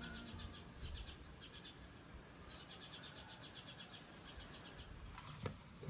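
Quiet outdoor ambience with repeated short trains of high, rapid chirping trills, several bursts of a second or less.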